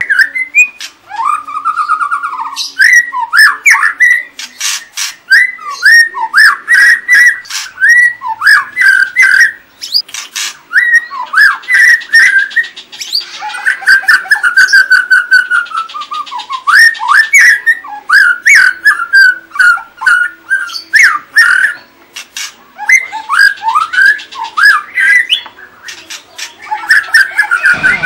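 White-rumped shama singing a long, varied song of short whistled phrases that slide up and down, mixed with sharp chattering clicks. It pauses briefly about ten seconds in and again a little after twenty seconds.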